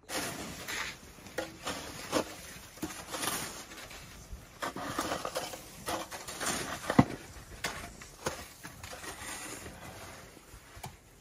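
Snow shovels digging and scraping into packed snow, with irregular crunches and knocks; one sharper knock about seven seconds in.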